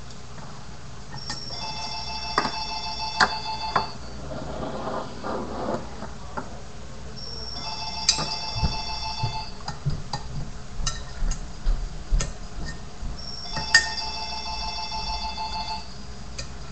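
A telephone ringing three times, each ring a couple of seconds of steady ringtone with a few seconds' gap between rings. Light clicks and taps of a finger BMX bike on a wooden desk come in between.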